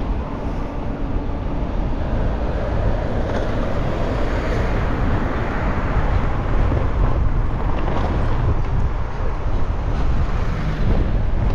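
Steady city street traffic noise: a dense low rumble of passing vehicles.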